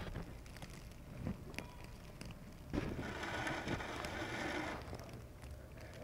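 Outdoor snowstorm ambience with wind buffeting the microphone as a low rumble, and a louder rushing noise for about two seconds in the middle.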